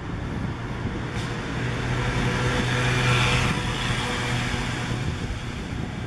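A motor vehicle passing close along the street: a steady engine hum and tyre noise swell to a peak about three seconds in, then fade, over the ongoing hum of city traffic.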